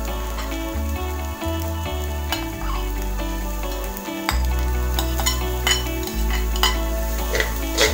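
Metal spatula scraping and clicking against a wok as egg, grated carrot and leeks are stir-fried, with a light frying sizzle. Background music with held bass notes plays underneath.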